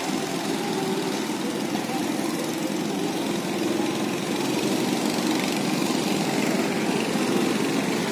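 Small go-kart engines running on the track, a steady mower-like drone that grows a little louder about halfway through.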